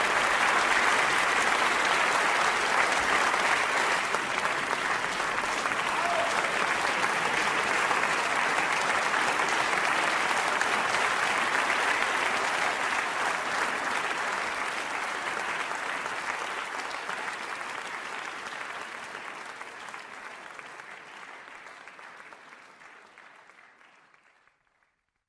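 Crowd applauding, a dense steady clapping that gradually fades out over the last ten seconds or so until it stops just before the end.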